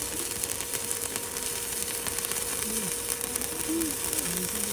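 Electric arc welding: a steady, dense crackle and sizzle from the arc, with a faint steady hum underneath.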